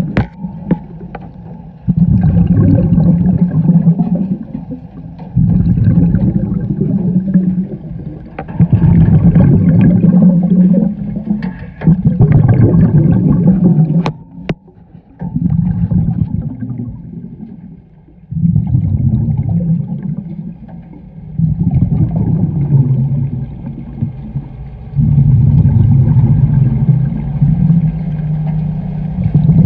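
A scuba diver's regulator breathing underwater: each exhale sends a burst of bubbles rumbling past, about every three to four seconds, with quieter pauses between breaths.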